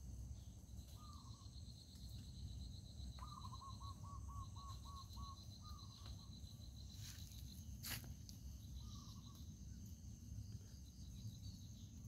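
Faint dawn ambience of a rice field: steady high insect chirring with a pulsing trill over it, and a bird giving short calls every few seconds, one of them a quick run of notes about three seconds in. A single sharp click comes near eight seconds, over a low rumble.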